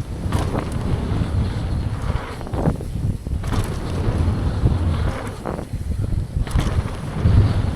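Wind buffeting the microphone of a downhill mountain bike ridden at speed, with tyres on dirt and sharp clatters from the bike hitting bumps.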